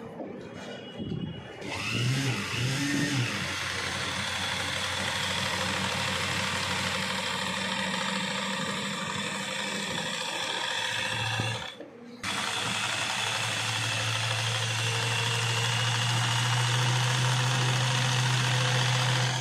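Vintage sewing machine running steadily as it stitches through cloth, with a steady low hum under the clatter of the mechanism; it is being test-run after its rust was cleaned off and it was oiled. The sound drops out briefly about twelve seconds in, then picks up again.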